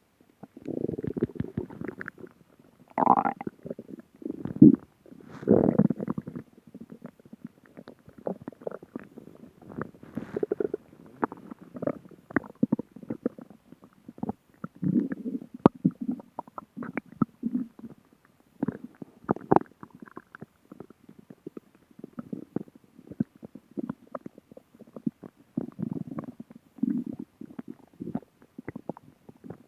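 A person's stomach growling and gurgling. A few louder, longer rumbles come in the first six seconds, followed by a run of short, irregular gurgles and pops.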